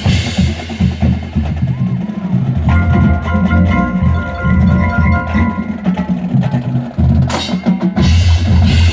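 Marching showband playing, with drums and percussion to the fore. Several high notes are held together for about three seconds in the middle.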